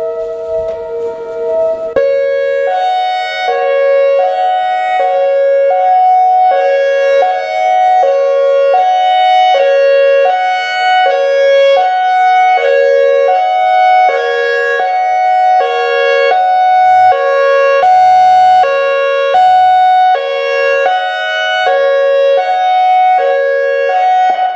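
ACA Alertronic AR-1600 electronic outdoor warning siren sounding a hi-lo tone: two pitches alternate at about one high-low cycle a second. It opens with a couple of seconds of a steady two-note tone before the alternating starts, and cuts off sharply at the end.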